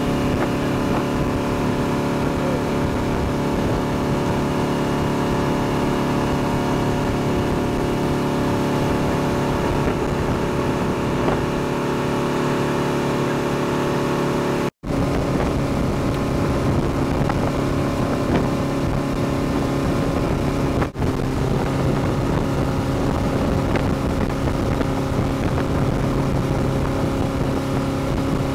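Motorboat engine running steadily at towing speed, a constant low hum over the rush of wind and wake water. It cuts out for an instant about halfway through.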